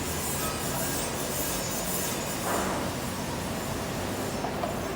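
MIG/MAG welding arc from a 500A welding machine, crackling and hissing steadily as it lays a bead.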